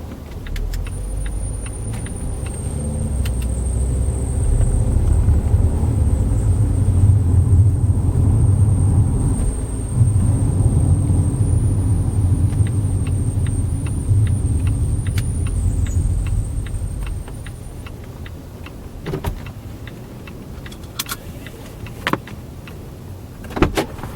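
Volvo V60 driving: a low engine-and-road rumble that builds over the first few seconds, stays strong, then eases off about two-thirds of the way through. A faint steady high whine sits above it for most of that time, with scattered sharp clicks, the loudest near the end.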